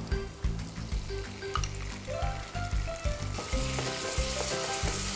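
Scallion whites, ginger, shallot and garlic frying in oil in a stainless steel pan, with black bean sauce added and stirred in with a spatula. The sizzle grows markedly louder about three and a half seconds in, once the sauce is stirred through.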